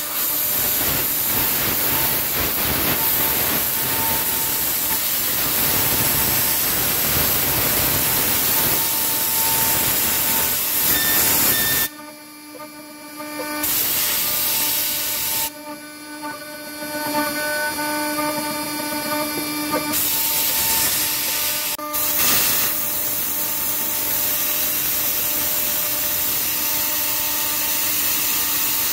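CNC engraving spindle running with a steady whine while a fine bit carves a metal die, under a loud hiss from a copper nozzle blowing onto the cut. The hiss cuts out briefly twice, about twelve and sixteen seconds in, leaving the spindle whine.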